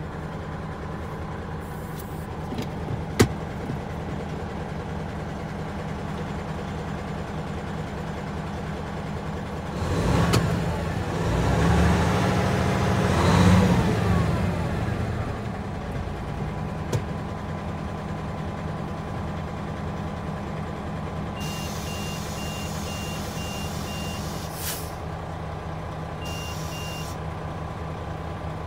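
Hino Profia truck's diesel engine idling, heard from inside the cab. About ten seconds in it gets louder for a few seconds, with the engine note rising and then falling. Near the end a rapid high beeping sounds twice for a few seconds each, with a short hiss between.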